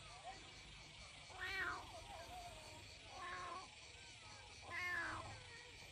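A kitten meowing: three loud, insistent meows a bit under two seconds apart, each rising and then falling in pitch, with fainter short mews between them.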